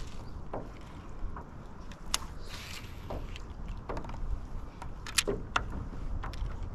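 Scattered light clicks and taps of a baitcasting reel and rod being handled aboard a kayak during a lure retrieve, over a steady low rumble.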